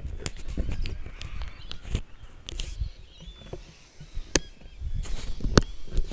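Handling noise from a camera and its tripod being picked up and set back down on rock: irregular knocks and clicks over a low rumble.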